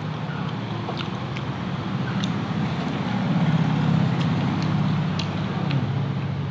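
A low rumbling hum that swells about halfway through and then eases off, with a few faint clicks of chewing and fingers working rice on a plate.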